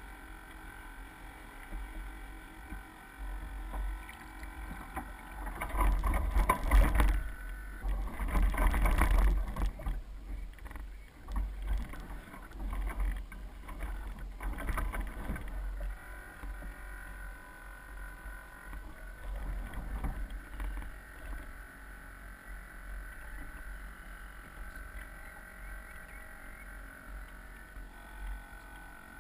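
Water splashing and sloshing against the hull of a Soling 1 Meter radio-controlled model sailboat under sail, over a constant low wind rumble on the deck-mounted camera's microphone. The splashing is loudest from about six to ten seconds in.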